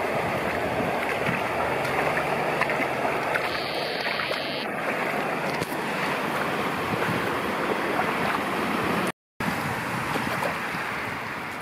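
Floodwater running along a street: a steady rushing of water that breaks off for a moment about nine seconds in.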